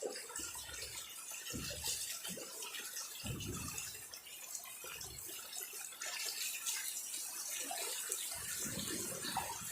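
Floodwater running and splashing in a steady rush, with a few muffled low bumps.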